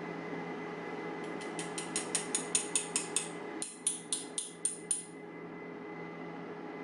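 Rapid light metallic taps with a bright ring, about five a second in two runs, the second louder: tapping on a lock to work its pins and springs out while it is being gutted.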